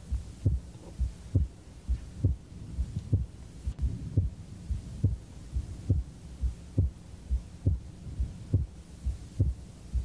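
A man's heart sounds picked up at the fourth left sternal border, beating steadily about seventy times a minute. The second heart sound is widely split whether he breathes in or out, the wide splitting of a right bundle branch block.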